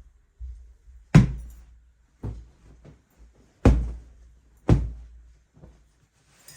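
Dull thumps and knocks indoors: four strong thumps, the first about a second in, with fainter knocks between, the sound of household objects or doors being handled.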